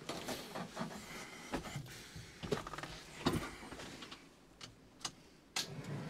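Knocks and clatter of a person settling into a Kubota tractor cab, handling the controls, with two sharper knocks in the middle. Near the end a steady hum starts as the key is switched on and the dash lights come up, before the engine is started.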